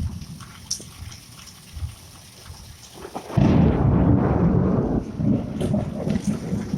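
Thunder in a rainstorm: a low rumble, then a sudden loud thunderclap a little over three seconds in that eases into rolling rumbling.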